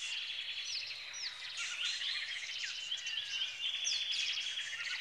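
A chorus of several birds chirping and twittering at once: many short, overlapping calls that sweep up and down in pitch.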